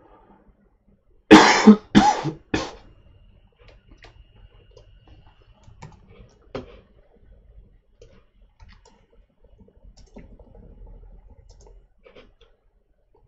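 A man coughs three times in quick succession, the first cough the longest and loudest. Faint scattered clicks of a computer mouse and keyboard follow.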